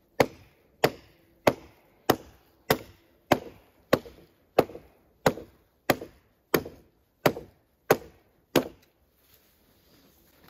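A blade chopping into a wooden log with about fourteen even blows, roughly one and a half a second, which stop a couple of seconds before the end.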